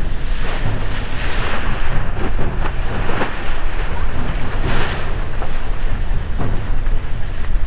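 Waves rushing and slapping past the hull of a sailing catamaran in choppy sea, with wind buffeting the microphone as a steady low rumble. Three louder surges of rushing water stand out.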